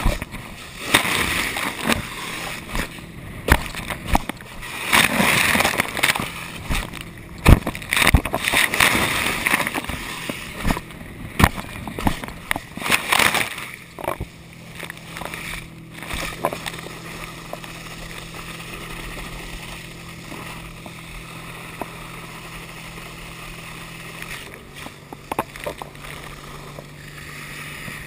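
Water spray from a slalom water ski hissing and splashing against the camera through hard turns, with sharp knocks, for about the first half. Then a smoother glide under a steady low drone from the tow boat's engine, which drops in pitch about three-quarters of the way in as the boat eases off.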